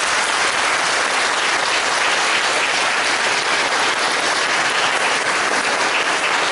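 Audience applauding, steady and dense.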